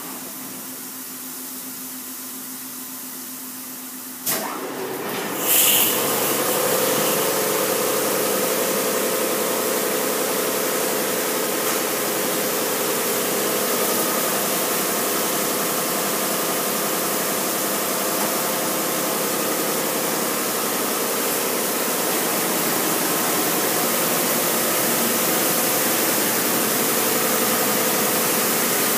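Mark VII automatic car wash starting a spray pass: a sharp knock about four seconds in, a burst of water a moment later, then a steady loud hiss of water jets on the vehicle over the drone of the wash machinery.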